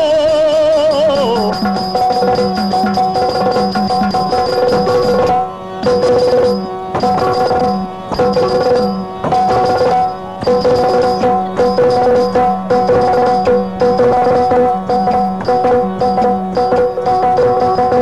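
Yakshagana music: a sung line with wavering pitch ends about a second and a half in, then hand drumming in a quick steady rhythm continues over a steady drone.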